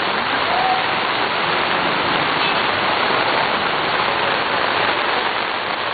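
Heavy rain and running floodwater, a steady, even hiss.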